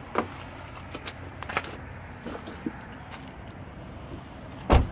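A person climbing into a car through the open driver's door: a few light knocks and rustles, then one loud thump near the end. No engine is running.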